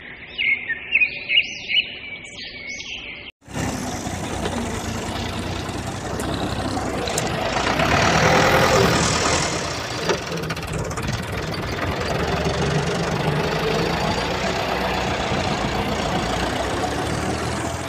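A few high chirping notes, then from about three seconds in a steady engine-like motor noise that swells around eight seconds in and then holds.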